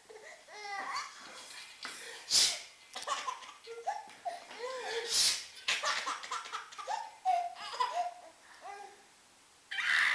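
A baby laughing in bursts of high, gliding squeals and giggles, set off by sneezes: short, sharp sneezes about every three seconds, each followed by a fresh round of laughter.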